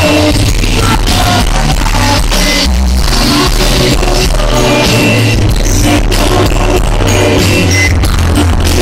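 Live indie band playing through a venue PA, recorded from the crowd, with electric guitar, drums and synths. The bass is booming and overloaded, the recorder's low end distorting at this loudness.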